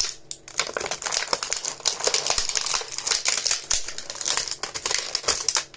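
Clear plastic blister packaging of an action figure crinkling and crackling as it is handled and worked open to free the figure, a dense run of irregular crackles that stops abruptly at the end.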